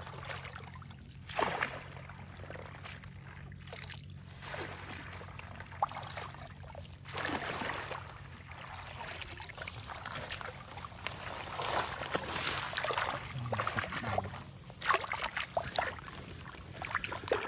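Water sloshing and splashing in irregular surges as a woven bamboo basket is scooped through shallow, weedy water, with water trickling out through the weave.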